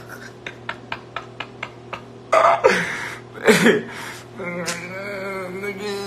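A man's voice: evenly spaced clicks at about four a second, then two loud vocal bursts, then a held hummed tune from about two-thirds of the way in.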